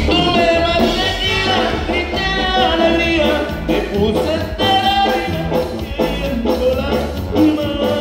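Live Mexican regional band music: a lead melody line over a steady bass line and drums.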